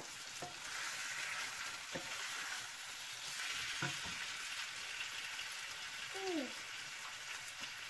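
Chicken pieces frying in a pan, a steady sizzling hiss, with a few light knocks of a knife slicing green pepper on a wooden cutting board and a short falling squeak near the end.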